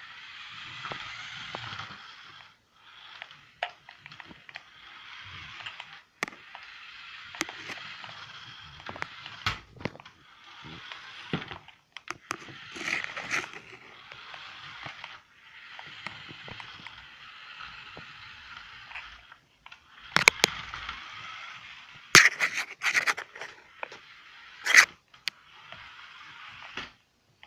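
Small toy RC car running off three AA batteries, its little electric motor and gears whirring in repeated bursts of one to three seconds as it is driven across carpet and stopped. Sharp clicks and knocks come in between, loudest in the last third.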